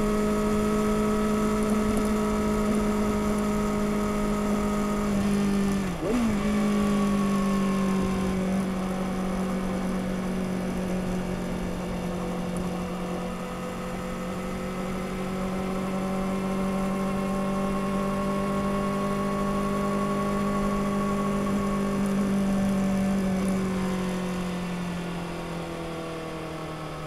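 2021 Kawasaki ZX-6R's 636 cc inline-four through its stock exhaust, heard from the saddle while riding at a steady cruise. The note briefly dips about six seconds in and then holds, and near the end the pitch falls and the engine gets quieter.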